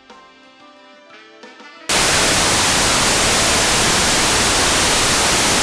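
Soft music with held notes, then about two seconds in loud white-noise static cuts in abruptly and holds steady: a sound-design effect of interference.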